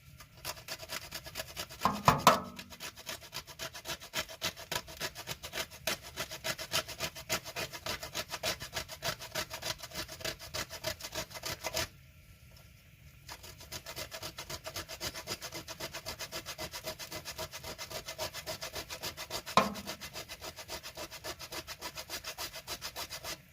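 A hard, dehydrated shiitake mushroom scraped back and forth on a hand grater, about four quick rasping strokes a second, with a short pause around the middle. There are two louder knocks, one about two seconds in and one near the end.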